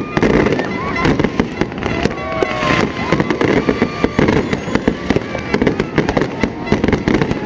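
Fireworks display going off without a break: a dense run of bangs and crackles, many a second.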